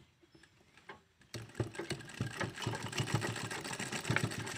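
Sewing machine stitching a seam: a fast, even mechanical clatter that starts abruptly about a second and a half in. Before it, a few faint clicks as the fabric is set under the presser foot.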